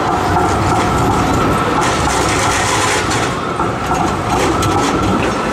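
A2-class tram running past close by, with a low rumble, a steady high whine, and a scatter of metallic clicks from its wheels crossing the rail junction about two seconds in and again near the end.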